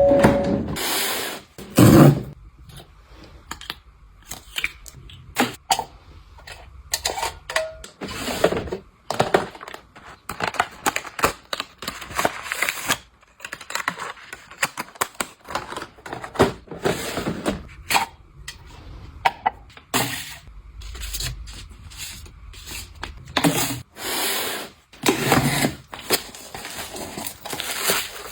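Items being handled close up and put away: an irregular run of sharp clicks, taps and knocks, with several rustling swishes of about a second each, typical of packaging and containers being opened, handled and set down.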